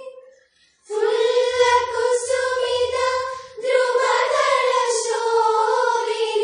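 A group of schoolgirls singing a patriotic song together. A held note ends about half a second in, then after a short pause for breath a new phrase starts with long held notes.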